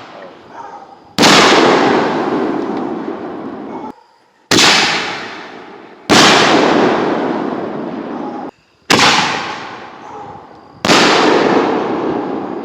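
Fireworks exploding: five loud bangs about 1.5 to 3 seconds apart, each fading away over a couple of seconds.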